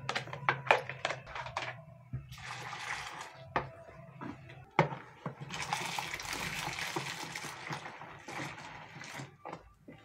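Water poured from a plastic blender jar into a bowl of foamy soap mixture, splashing into the liquid. It comes in two spells, a short one and a longer one about halfway through, with light knocks of the plastic jar and a spatula stirring in between.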